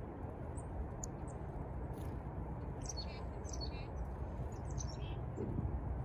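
Black-capped chickadees giving short, high chirps and calls, bunched in two groups in the middle, over a steady low rumble.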